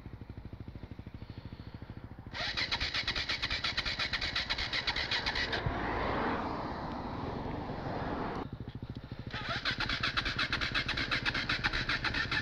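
Single-cylinder four-stroke enduro dirt bike engine running. It starts as a quieter, even idle, then fires louder and faster from about two seconds in. It eases off for a few seconds in the middle and picks up again near the end.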